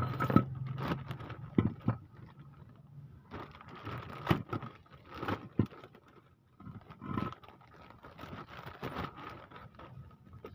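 Irregular clinks and knocks of hand tools and metal parts as a mechanic works under a car on its front suspension, over a faint steady hum.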